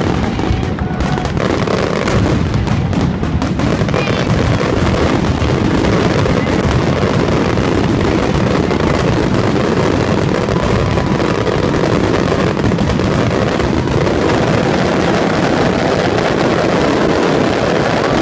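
Fireworks going off in a dense, continuous barrage. Separate sharp reports in the first few seconds merge into a steady, loud wall of bangs and crackle.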